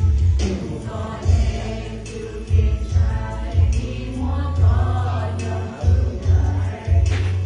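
Hmong church choir singing a hymn together, over an accompaniment with a deep, pulsing bass line and sharp beats about once a second.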